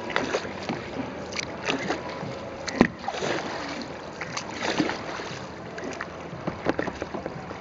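Kayak paddle strokes splashing in the water, irregular and uneven, with a single sharp knock about three seconds in.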